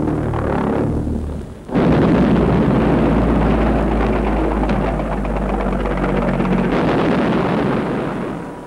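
V-1 flying bomb's pulse-jet engine droning with a steady low buzz, which cuts out just over a second in. After a brief dip, a sudden loud rumbling roar, as of an explosion, sets in and fades away over the last few seconds.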